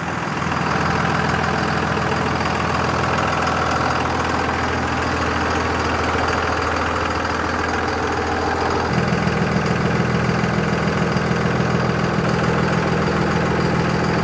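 Diesel pickup truck engine idling steadily, growing a little fuller and louder about nine seconds in.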